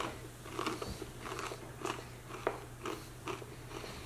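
A person chewing a mouthful of crunchy homemade granola made from rolled oats and puffed rice, close to the microphone, with a crisp crunch about two or three times a second.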